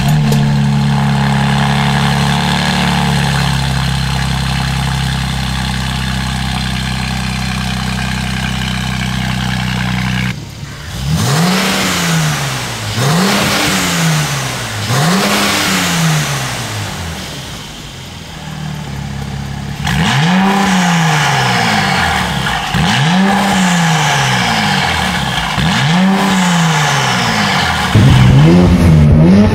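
Mercedes-AMG C43's twin-turbo V6 through a catless valved aftermarket exhaust, cold-started and held at a steady fast idle. From about ten seconds in it is free-revved in short blips, each climbing and falling back, with the exhaust valves closed for the first set. A second set of blips follows after a short dip, and the last ones are suddenly much louder.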